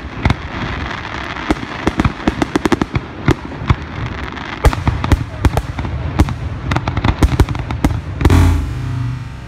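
Fireworks finale barrage: rapid sharp bangs and crackling from shells bursting overhead, several reports a second. About eight seconds in, the bangs give way to loud distorted electric guitar music.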